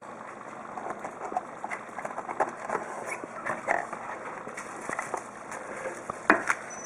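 Cardboard box and plastic-wrapped contents being handled on a wooden table: rustling, crinkling and light knocks throughout, with one sharp knock near the end.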